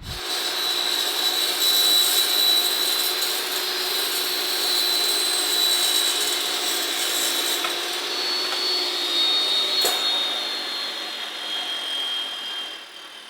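High-speed electric power tool cutting pipe to length, running with a steady high whine, then winding down near the end.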